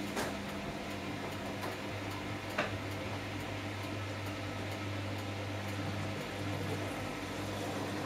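Samsung Eco Bubble front-loading washing machine running its wash: a steady low motor hum as the drum turns the laundry, with a couple of light knocks, one right at the start and one about two and a half seconds in.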